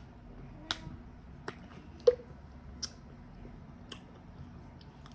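A handful of short, sharp clicks and taps, scattered roughly a second apart over low room noise.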